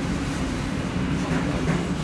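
Fagor FI-80E dishwasher running: a steady, even, low rumble of the machine at work.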